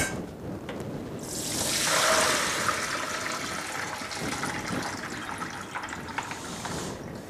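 Kitchen tap water running into a plastic bowl at the sink. It comes on about a second in, is loudest just after, then runs on more evenly with a few small knocks and stops near the end.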